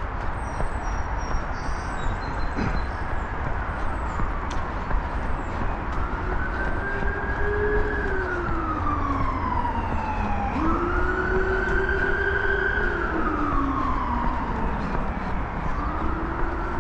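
Emergency vehicle siren on a slow wail, its pitch rising and falling about four times and loudest in the middle, over a steady low rumble.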